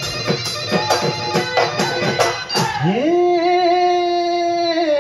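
Bihu folk music: dhol drums beaten in quick strokes. About three seconds in they stop and a single long note scoops up in pitch and holds steady.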